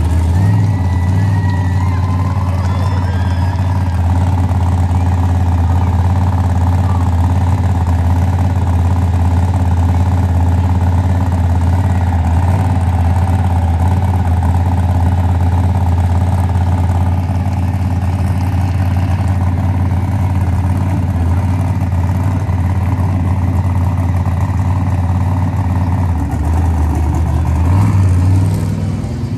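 Monster truck engine running loud and steady at low speed as the truck rolls slowly by. Near the end the note drops briefly, then climbs as the throttle is opened.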